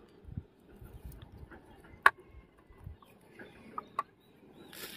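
A few sharp plastic clicks and light knocks from handling an electric screwdriver kit's hinged plastic case and setting it down on concrete, one click much louder than the rest about two seconds in.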